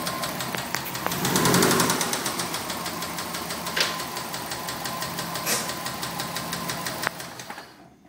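2004 Subaru WRX's EJ20 flat-four engine running with a rapid, regular rod knock, the sign of a worn connecting-rod bearing. It revs up briefly about a second in, then dies away near the end.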